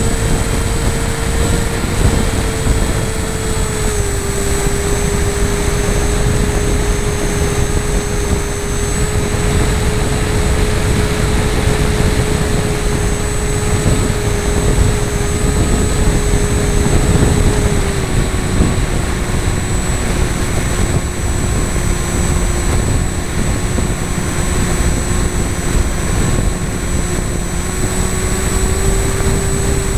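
FPV model aircraft's motor and propeller droning at a steady pitch as the camera rides along, dipping slightly twice and rising again near the end with throttle changes. Wind rushes over the onboard camera's microphone.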